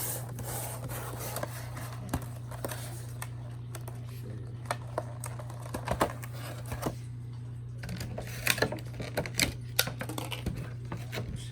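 Irregular clicks, taps and scrapes of a cardboard trading-card collection box being opened and unpacked by hand, with a busier run of sharp clicks near the end, over a steady low hum.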